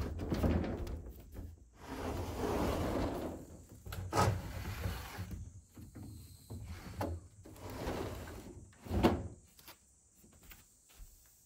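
Wooden-framed glass sliding windows being slid open along their wooden tracks: rumbling in a few pushes, with a sharp knock about four seconds in and a heavier thump about nine seconds in as a panel reaches the frame.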